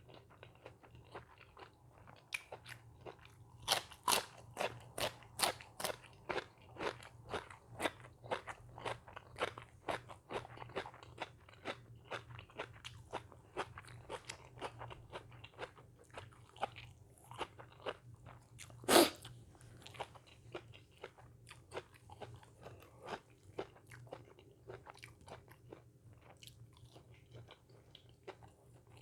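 A person chewing crunchy food, a steady run of crisp crunches about two or three a second, with one much louder crunch about two-thirds of the way through.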